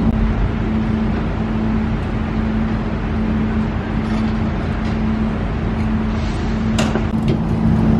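Engine running steadily with a constant hum, with a sharp knock about seven seconds in and a fainter one just after.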